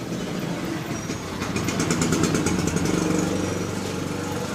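A motor vehicle engine running, swelling about midway and then easing, with a quick run of even clicks in the middle.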